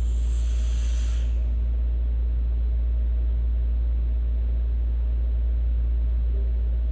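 Hiss of a drag on an e-cigarette, lasting about a second and a half and fading out, over a steady low hum.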